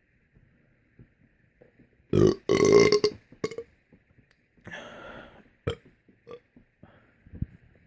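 A man belches: a loud two-part belch about two seconds in, then a softer, shorter belch about a second and a half later. A few small knocks follow near the end.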